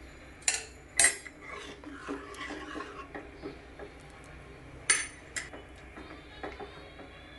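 Metal-on-metal clinks and scraping from a steel ladle lifted out of an aluminium pressure cooker, then the cooker lid clanking shut, with two sharp clinks about five seconds in.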